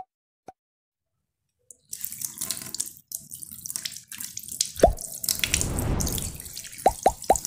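Kitchen tap water running over a calabresa sausage as hands rub it under the stream, with a few sharp drips and splashes. The water starts about two seconds in, after two short pops and a moment of silence.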